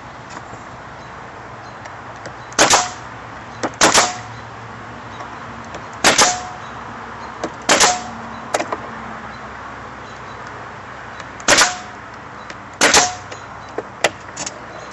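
Pneumatic nail gun driving fasteners into wood: six loud, sharp shots a second or two apart, each with a brief ring, and a few lighter clicks between them.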